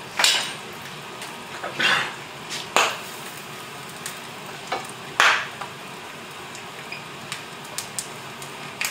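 Food sizzling steadily in a cast-iron frying pan, with four louder scrapes and a few small clicks over it.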